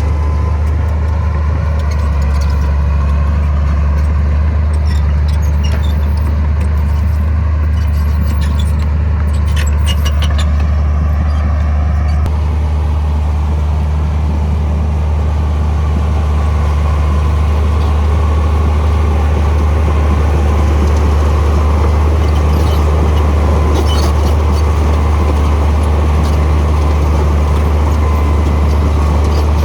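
Heavy diesel engine of earthmoving machinery running steadily with a deep drone. A whine rises and falls in pitch through the first dozen seconds, and light clicks come and go.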